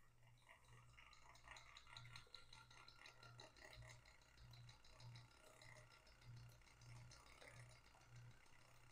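Faint running of a Weeden 670 toy electric engine turning a hoisting drum through its pulley and gears: rapid fine ticking with a low hum that pulses about twice a second.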